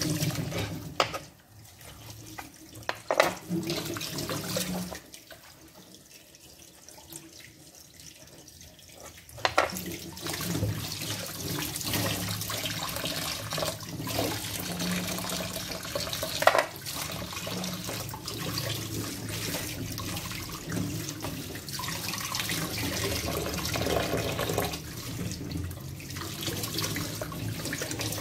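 Tap water running into a stainless-steel sink while raw chicken pieces are rinsed and rubbed by hand over a plastic bowl. The water is much quieter from about two seconds in until about ten seconds in, then runs steadily, with an occasional knock.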